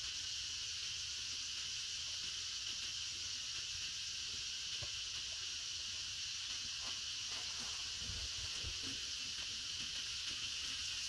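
Steady, unbroken high-pitched drone of an insect chorus, with a few faint knocks and rustles around the middle and near the end.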